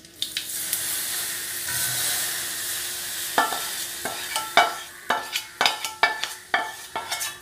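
Hot oil with fried mustard seeds and asafoetida hissing and sizzling as it is poured from a steel pan onto cut raw mango. After about three seconds the hiss fades and sharp metal scraping strokes on the steel pan follow, about two a second, as the last of the tempering is scraped out.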